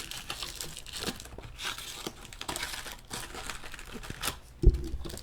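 Trading card pack wrappers being torn open and crinkled, a dense run of crackling rustle, with one sharp thump near the end.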